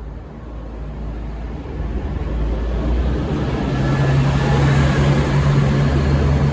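V/Line VLocity diesel railcar set pulling away under power, its diesel engines growing steadily louder as it draws near, with a strong low drone setting in about three and a half seconds in.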